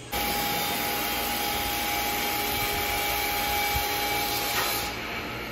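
Sawmill woodworking machinery running: a steady, loud mechanical noise with a thin steady whine, easing slightly near the end.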